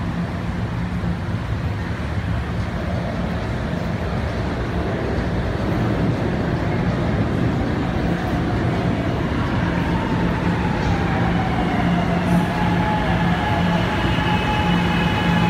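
SEPTA Market-Frankford Line subway train pulling into a station, its rumble growing louder as it approaches. From about nine seconds in, a whine falls in pitch as the train slows.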